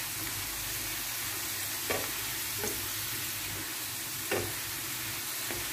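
Fresh-cut potato fries sizzling in hot oil in a nonstick frying pan, with a steady hiss. A wooden spatula stirs them, knocking briefly against the pan a few times.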